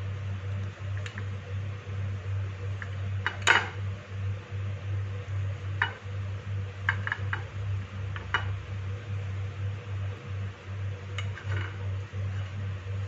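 A kitchen knife clicking and scraping against a ceramic plate as it cuts down through a slab of sohan halwa: a scattering of short sharp clicks, the loudest about three and a half seconds in, more around six to eight seconds and again near eleven. A steady low hum runs underneath.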